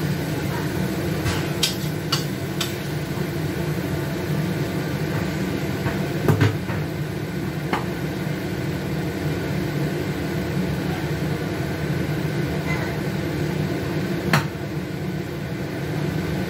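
A spatula and bowl click and knock against a wok of frying ground pork and egg: a few sharp knocks over a steady low hum. The loudest knock comes about six seconds in, and another near the end.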